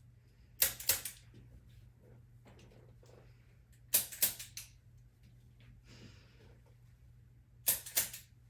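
Sharp clicks in quick pairs during a chiropractic adjustment, three times about three and a half seconds apart.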